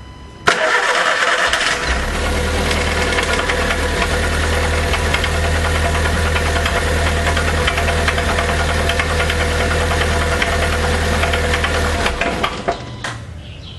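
VW EA111 1.0 8-valve four-cylinder engine started about half a second in, running for about twelve seconds with a rapid mechanical knocking over its steady hum, then switched off near the end. The noise came on together with the oil pressure warning light, a sign of a serious lubrication problem.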